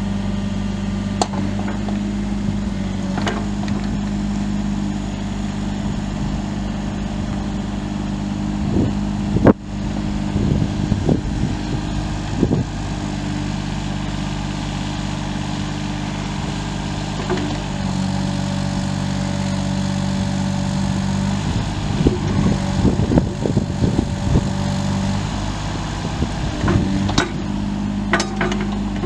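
2013 Volvo ECR38 compact excavator's turbo diesel engine running steadily, with a sharp knock about nine and a half seconds in and scattered clanks near the end.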